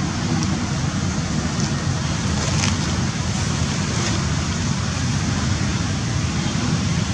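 Steady rumbling background noise, heaviest in the low end, with a few faint ticks about halfway through.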